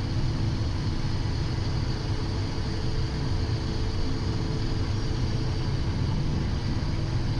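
Steady cockpit noise of a Cessna Citation XL business jet on short final: its turbofan engines and the rush of air, with a low rumble and a few faint steady tones.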